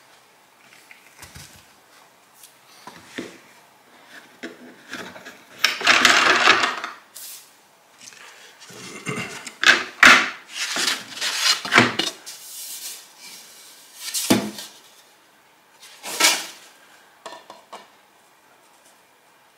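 Low-angle jack plane shaving the edges of spruce guitar top plates: irregular strokes of differing length, the longest about six seconds in, a run of shorter ones a few seconds later, with knocks of the tool and wood being handled.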